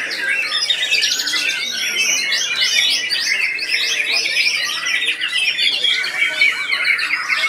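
White-rumped shamas (murai batu) singing in competition, several caged birds at once. The result is a dense, non-stop stream of rapid whistles, trills and sharp call notes, with no pause.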